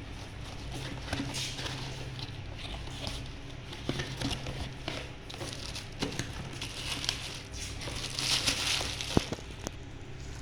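Packaging rustling and crinkling as parts are taken out of a box, with scattered light knocks and clicks, over a steady low hum.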